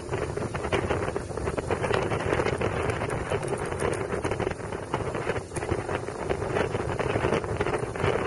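Wind buffeting the microphone of a camera worn by a motorcycle rider at motorway speed, a steady fluctuating rush over the low running noise of the bikes and road.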